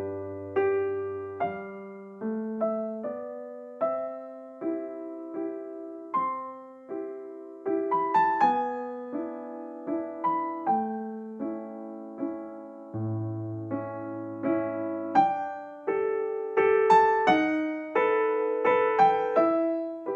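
Background music: a piano playing a slow melody over chords, each note struck and then fading away.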